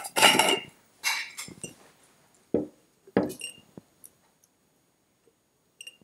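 Glass mason jar being handled as lemon and ginger slices go into it: two short scrapes, then two sharp knocks and clinks in the first half, then a few faint ticks.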